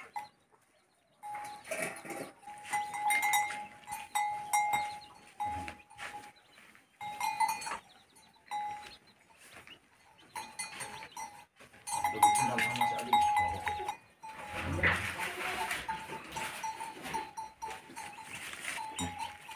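Cattle bell ringing on and off as the cows move about and feed, its clear tone coming in short spells with gaps between, with other cattle noises among it.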